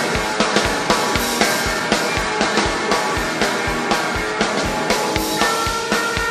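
Live rock-and-roll band of electric guitar and drum kit playing an instrumental passage with no vocals, the drums keeping a fast, even beat. About five seconds in, a guitar chord is held and rings on. Heard as a cassette recording taken off the soundboard.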